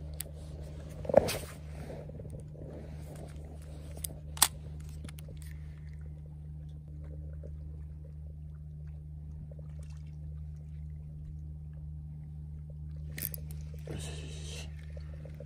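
A steady low hum with a few sharp clicks and knocks from handling the fishing rod and reel, the loudest about a second in, and a short rustle near the end.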